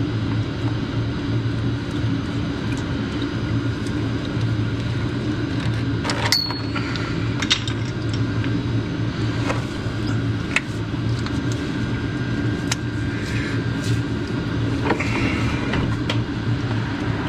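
A steady low mechanical hum, with small clicks and knocks from hands working the coolant hoses and fittings here and there.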